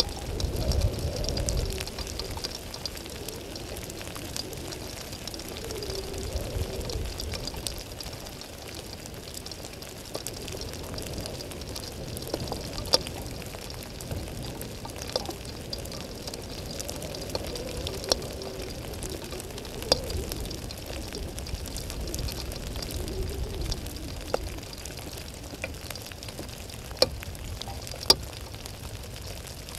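Steady rain, a continuous hissing patter, with scattered sharp drops ticking close to the microphone, the loudest near the end. A low rumble in the first couple of seconds.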